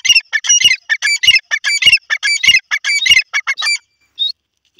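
Grey francolin calling: a fast, loud run of repeated notes that stops a little before four seconds in, followed by one short note.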